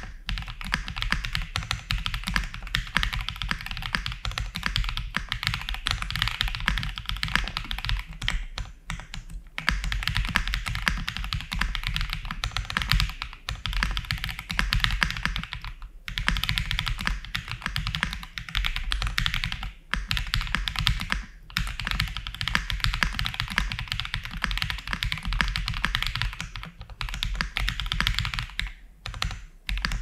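Fast, continuous typing on a Fuji75 mechanical keyboard with Everglide Aquaking V3 linear switches, aluminium plate and full foam: a dense stream of keystroke clacks, broken by a few short pauses.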